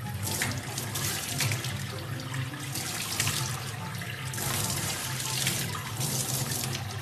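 Water running and splashing, as from a tap into a sink or tub, with a steady low hum underneath.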